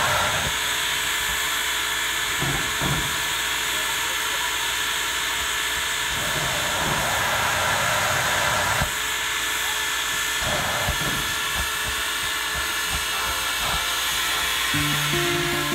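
Soviet L-class steam locomotive venting steam in a loud, steady hiss, with a few dull knocks. Music comes in near the end.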